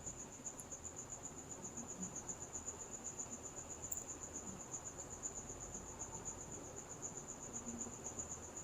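Faint, steady high-pitched trill of a cricket, pulsing evenly several times a second.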